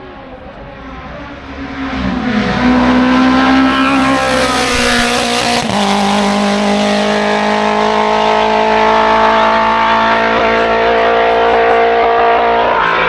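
Race car engine at high revs growing louder as the car comes up the hill, its pitch dropping suddenly about six seconds in and then holding steady and loud.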